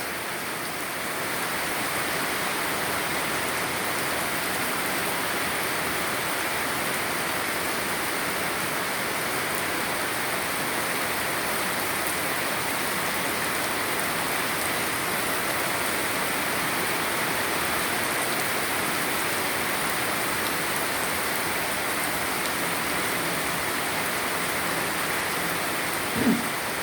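Heavy rain falling steadily, an even wash of noise. Near the end there is one brief short sound.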